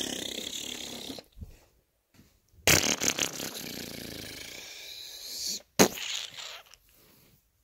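A child's mouth-made battle sound effects: a hissing blast fading out at the start, then a longer spluttering explosion noise about three seconds in. A sharp click follows near the end with a short burst of noise.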